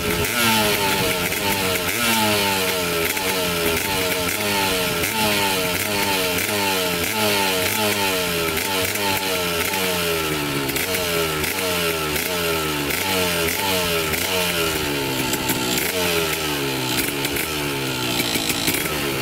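Kawasaki KDX200's single-cylinder two-stroke engine running while stationary, its throttle blipped over and over, about once a second.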